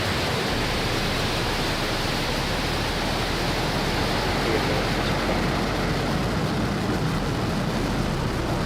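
Falcon 9 rocket's nine first-stage Merlin engines at full thrust just after liftoff, a steady unbroken rush of noise as the vehicle climbs.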